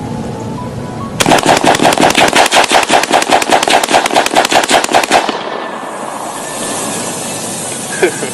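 Magpul ACR rifle firing one sustained burst of rapid, evenly spaced shots for about four seconds, starting about a second in and cutting off abruptly.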